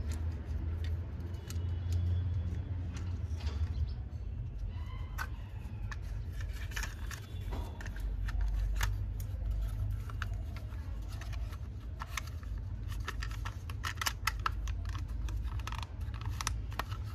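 Irregular light clicks and rattles of small hard parts being handled, growing busier after about five seconds, over a steady low hum.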